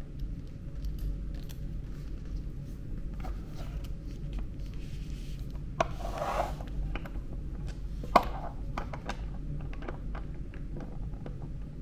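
Hand work on the locking mechanism of a hospital bed's extension section: scattered small clicks, a scraping rub about six seconds in, and a sharp click about eight seconds in, over a steady low hum.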